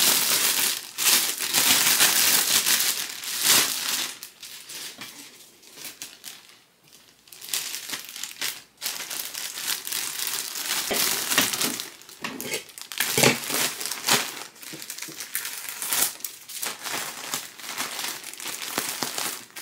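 Clear plastic bag crinkling and rustling as a jacket is handled and stuffed into it. The crinkling is loudest for the first few seconds, dies down briefly about six seconds in, then comes back in irregular bursts.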